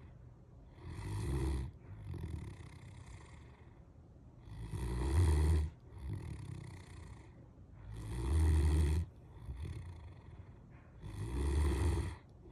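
Great Dane snoring in deep sleep: four loud, rough snores about three and a half seconds apart, each followed by a quieter breath.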